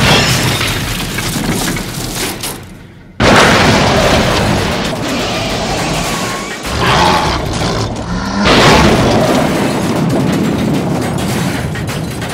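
Loud explosion-like booms laid over background music. A blast that began just before fades over the first few seconds, a second boom hits suddenly about three seconds in, and a third comes past the middle.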